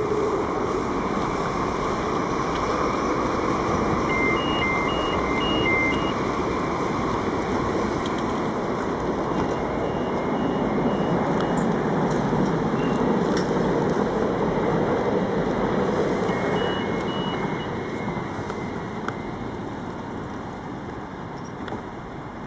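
An NS Sprinter Light Train electric multiple unit at the platform gives a steady loud hum and rush. The sound swells in the middle and fades near the end. Three times, a short series of two-pitch electronic beeps sounds over it, typical of the train's door-closing warning.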